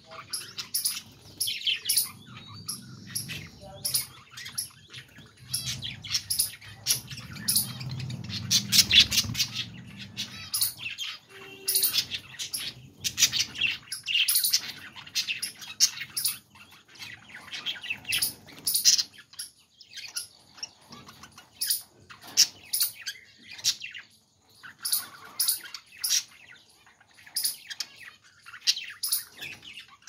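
A flock of budgerigars chirping and chattering, many short high calls overlapping without a break. A low rumble runs under the calls for about the first third.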